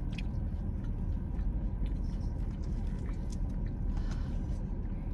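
Steady low rumble of a car's running engine heard inside the cabin, with a few faint soft clicks.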